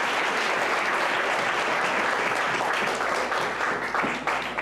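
A roomful of people applauding, dense steady clapping that thins out with a few last sharp claps near the end and then stops.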